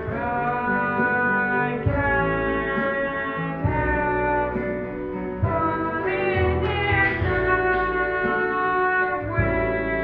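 A woman singing long held notes over an instrumental backing with a bass line.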